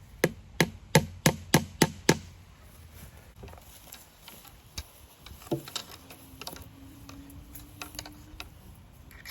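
Hammer driving a fence staple into a wooden fence post to hold the brace wire: a quick run of about seven sharp blows, roughly three a second, stopping about two seconds in, followed by a few lighter taps.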